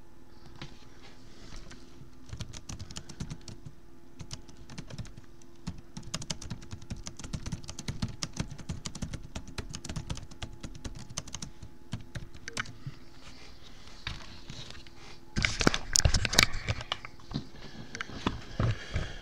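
Typing on a Lenovo laptop keyboard: a steady run of irregular key clicks, with a louder stretch of heavier knocks and clatter about fifteen seconds in.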